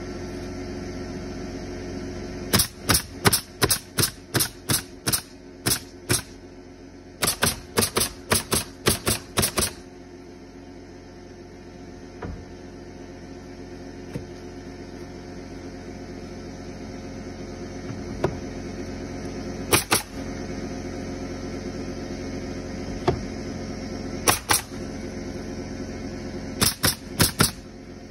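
Nail gun firing nails into wooden fence pickets, in two quick runs of about eight shots at roughly two a second, then single and paired shots later on, over a steady low hum.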